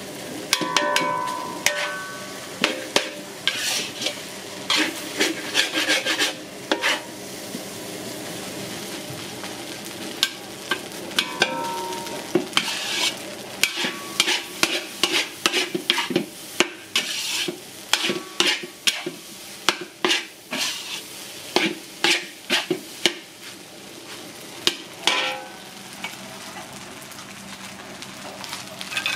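Metal spatula scraping and clanking against a steel wok as rice is stir-fried, with many irregular strokes over a steady sizzle. A few strokes ring briefly.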